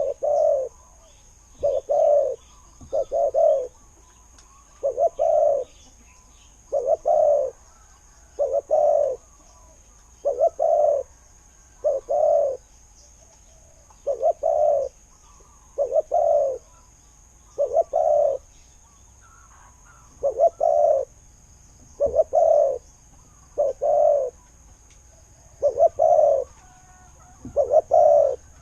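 Spotted dove cooing: short, low coo notes, some in close pairs, repeated about every one to two seconds.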